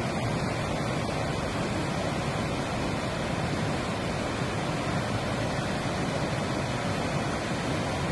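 Steady rushing of a swollen flood river pouring through a weir, an even unbroken wash of water noise with no distinct impacts.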